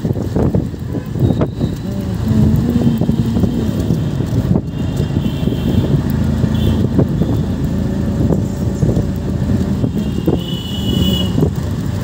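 Steady rumble of a moving vehicle on a city road, engine and road noise mixed with passing traffic.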